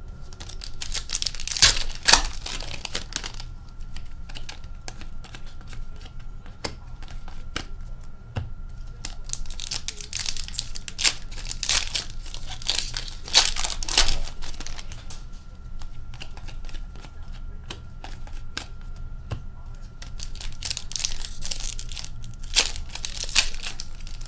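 Hockey trading card packs being torn open and their foil wrappers crinkled, with cards slid, flicked and tapped down on a glass tabletop, in several bursts of rustling and clicking.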